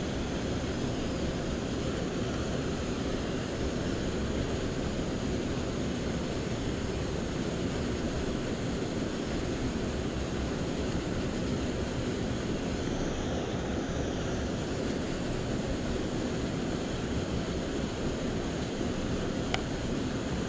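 Steady rushing outdoor background noise, with one sharp click near the end.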